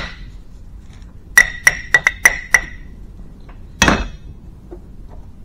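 Hammer tapping the steel end of a hydraulic cylinder to knock it off past a stubborn O-ring: about six quick metallic taps, each ringing briefly, starting about a second and a half in. A single heavier thump follows about four seconds in.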